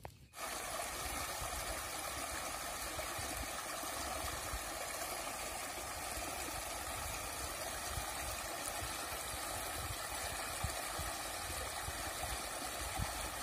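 Water rushing and splashing as it pours through a narrow cut in an earth bank, a steady loud rush that starts abruptly about half a second in.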